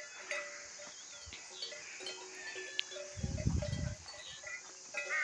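Bells worn by grazing livestock ringing now and then, thin clear tones that come and go. A low rumble on the microphone about three seconds in.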